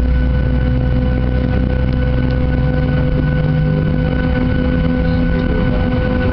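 A Boeing 737-800's CFM56-7B engine during its start, heard from inside the passenger cabin: a steady low rumble under a mix of steady whining tones, with one low tone rising slightly about three seconds in.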